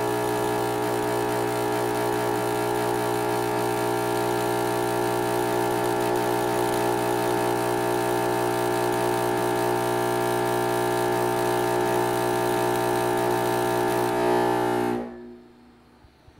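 AC TIG welding arc from a Lincoln AC 180 buzz box with an Arc Pig high-frequency stabilizer, running on 1/8-inch aluminum at about 115 amps. It gives a steady 60-cycle buzz with a hiss over it, which is normal for a buzz box. The arc cuts off about fifteen seconds in.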